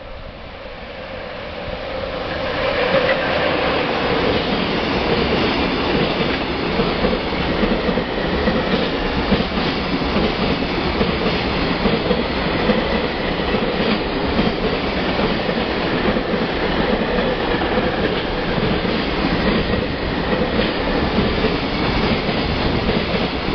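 JR Freight EF66 electric locomotive and its long train of container wagons passing at speed: the sound builds over the first few seconds as the locomotive approaches, then holds as a steady rumble of wheels on rails, with wheel clicks over the rail joints.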